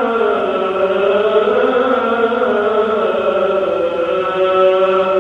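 A muezzin's voice chanting the Friday call to prayer (adhan) before the sermon, in one long held phrase whose pitch bends slowly up and down.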